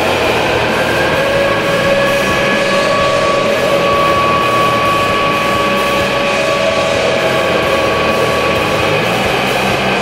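Hockey arena goal horn blowing in a long, steady blast, mixed with loud goal-song music.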